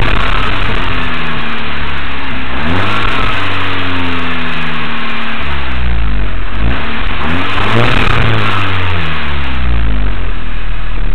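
SEAT León Cupra R's stock turbocharged four-cylinder engine and exhaust, the revs rising and falling several times.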